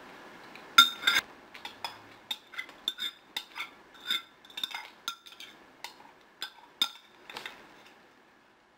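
Metal spoon clinking and scraping against a glass mug while scraping out the last of its contents. A loud cluster of ringing clinks comes about a second in, then irregular clinks every few tenths of a second, fading out about a second before the end.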